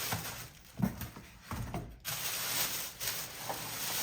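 Cardboard and packing material rustling, with a few light knocks, as a mini fridge is handled and pulled from its shipping box.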